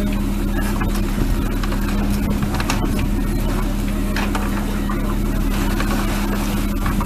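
Lobster boat engine running steadily: a constant low drone with a strong hum, with scattered short knocks over it.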